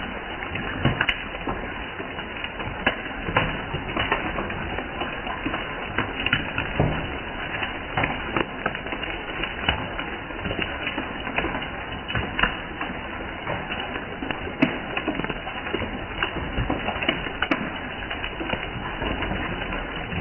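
Steady rainfall, with many irregular sharp taps of drops striking surfaces close to the microphone.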